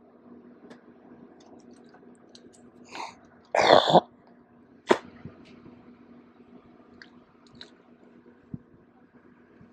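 A man clears his throat once, loudly, about three and a half seconds in, after a softer breath just before. Faint clicks and a low steady hum sit under it.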